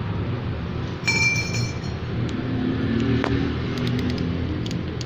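A metal clink with a brief ring about a second in, and a few lighter clicks later, from tools and the brake caliper being handled on a motorcycle front fork. Under them runs a steady low rumble.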